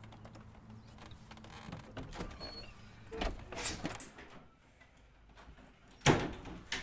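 A wooden door with glass panes being opened and entered through: handle and latch clicks and knocks about three seconds in, then one sharp bang about six seconds in, the loudest sound.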